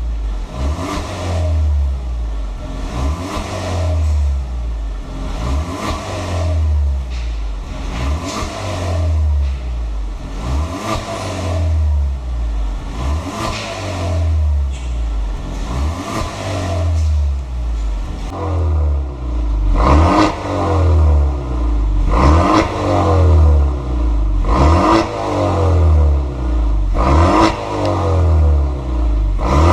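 Kia Stinger 2.0T's turbocharged four-cylinder engine revved again and again through a chambered dual valve exhaust, about one rise and fall in pitch every two and a half seconds. The revs grow louder about two-thirds of the way in.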